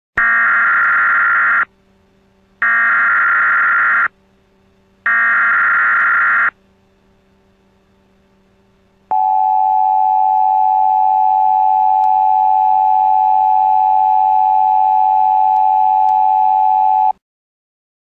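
Emergency alert broadcast signal: three short bursts of warbling digital data tones, about a second and a half each with a second's gap between, as in an EAS-style SAME header. After a short pause comes a steady single-pitched attention tone that lasts about eight seconds and cuts off sharply.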